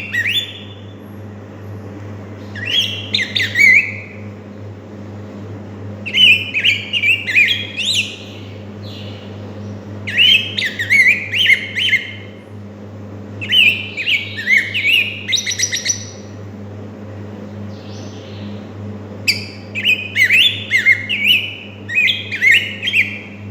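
Young black-backed grosbeak singing: five rich, warbled phrases of about two seconds each, separated by pauses of a second or two.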